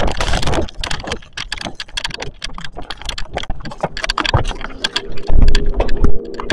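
Handling noise of a handheld camera — rustling, knocks and clicks — as someone climbs into a pickup truck cab. About four seconds in a steady low hum starts, with a few heavy thumps just after.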